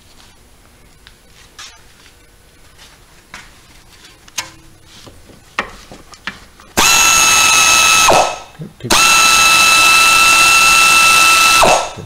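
Air impact wrench with a 17 mm socket run twice on the front brake caliper's mounting bolts to loosen them: a steady high whine for about a second and a half, a short pause, then about three seconds more. Before it come a few light knocks and clicks as the socket is fitted and set on the bolt.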